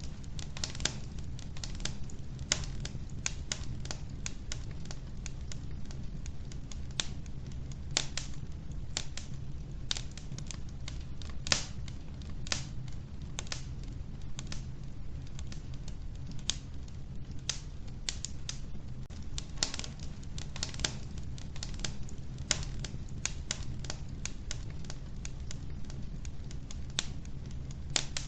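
Wood fire crackling in a wood-burning stove: many sharp, irregular pops and snaps of varying loudness over a steady low rumble.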